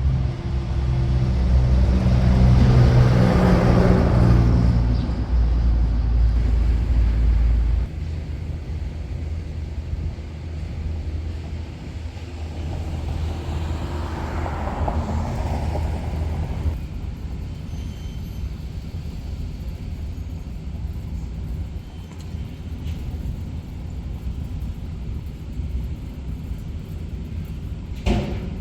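Road traffic, with a steady low rumble. One vehicle passes about three seconds in and another around fifteen seconds in, each rising and then fading away.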